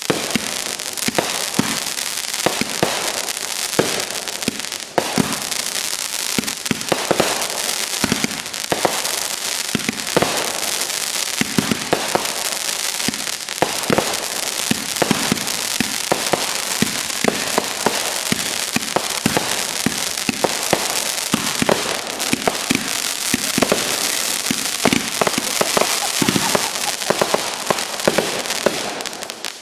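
Consumer fireworks going off in one long unbroken volley: dense crackling packed with many sharp pops, dropping away near the end.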